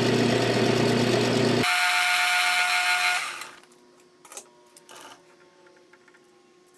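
Metal lathe running as it turns a brass bushing blank. The sound changes about a second and a half in and dies away by about three and a half seconds as the machine stops, followed by a couple of faint clicks.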